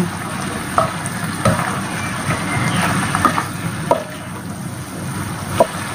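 Chicken, shrimp and cabbage sizzling in a large nonstick pan while a spatula stirs and tosses them, with several sharp knocks and scrapes of the spatula against the pan.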